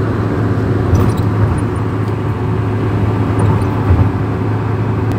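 Car interior noise at highway speed, about 110 km/h: a steady low engine and road drone.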